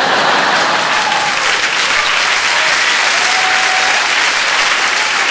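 Large audience applauding hard after a punchline: a steady, loud round of clapping, with a couple of drawn-out calls from the crowd in it.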